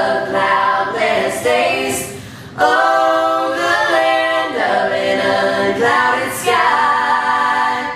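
A cappella choir singing a gospel hymn in harmony, holding long notes, with a brief drop in the singing about two and a half seconds in.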